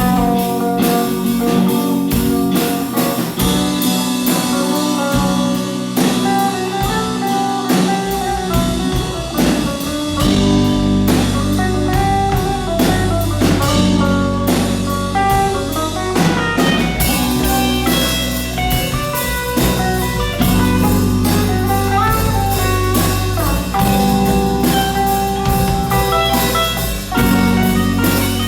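A band playing a song on drum kit and guitar, with steady drum hits under held and moving guitar notes. The low end fills in about eight seconds in and stays for the rest.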